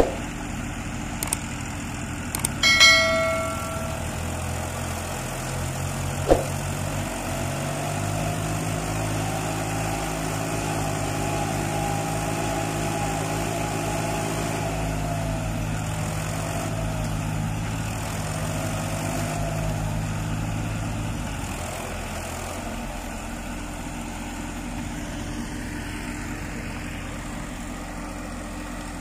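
Tractor diesel engines working hard as a John Deere 5047 tows a Tafe 7250 DI bogged in paddy-field mud. The revs rise about seven seconds in, hold steady under load, and drop back around twenty seconds later. A short bell-like ring sounds near the start.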